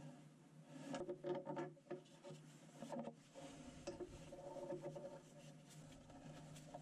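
Faint rubbing and small clicks of an Allen key turning the bolts of a bow thruster's plastic motor bracket, most of them about one to three seconds in, over a steady low hum.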